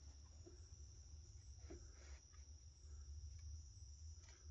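Near silence: crickets trilling steadily and high-pitched in the background over a faint low hum.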